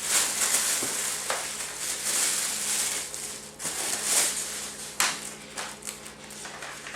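Plastic packaging around a monitor base being unwrapped: uneven crinkly rustling with a few sharp snaps, over a faint steady low hum.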